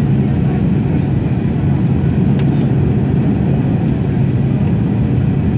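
Airbus A330-300 cabin noise on approach to landing, heard from a window seat over the wing: a steady, deep rumble of engines and airflow.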